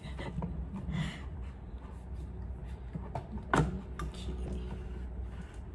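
Plastic clicks and knocks from a hose end being fitted into the intake of a Philips PowerCyclone FC9350 canister vacuum, with the sharpest click about three and a half seconds in, over a low steady hum. The vacuum is not running.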